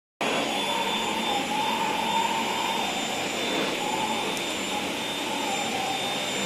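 Dyson vacuum cleaner running at a steady speed: a loud, even whir with a high-pitched whine and a slightly wavering midrange hum. It comes in abruptly just after the start.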